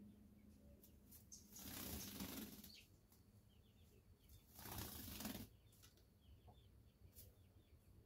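Two short flurries of wingbeats, each about a second long and about three seconds apart, as a sooty-headed bulbul flutters between perches.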